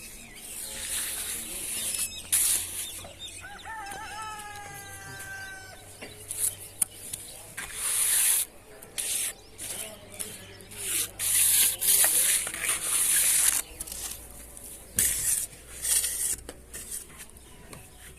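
A rooster crows once, a single drawn-out call of about two seconds, a few seconds in. Around it come several loud, short bursts of harsh hissing noise, the loudest sounds here.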